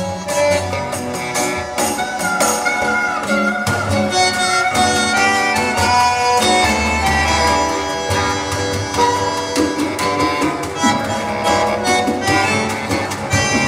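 Recorded acoustic music with violin and plucked strings, played through an Odyssey Audio hi-fi loudspeaker system.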